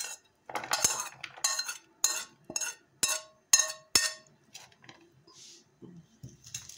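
Metal utensil scraping and knocking against an enamel bowl as sliced carrot and onion are scraped out into a frying pan: a run of sharp, briefly ringing clinks about two a second for about four seconds, then only faint, soft rustles.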